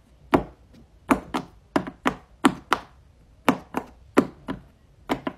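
Round silicone pop-it fidget toy, its bubbles pressed one at a time with a finger: a string of about a dozen short, sharp pops in an uneven rhythm, tapped out as the rhythm of a song.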